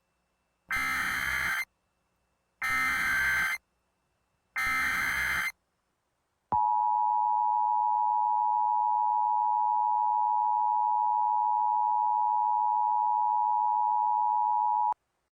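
Emergency Alert System header: three one-second bursts of SAME digital data tones about a second apart, then the steady two-tone EAS attention signal for about eight seconds, cutting off sharply.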